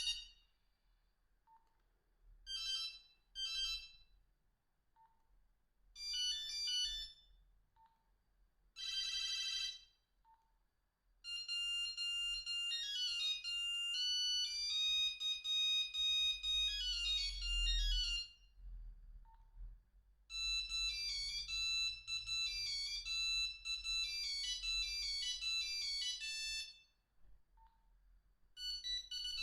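Nokia 2110i mobile phone playing its ringtones one after another: short beep patterns in the first ten seconds, then two longer melodies of rapid single beeping notes, with faint single blips in the gaps between them.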